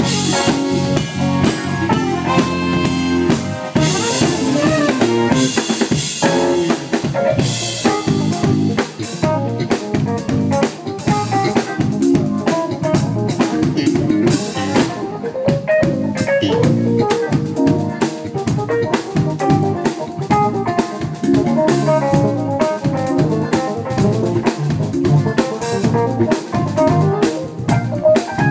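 Live funk-jazz band playing, with a busy drum kit out front: snare, rimshots and kick drum over bass and pitched instruments. Cymbal wash rings through the first several seconds.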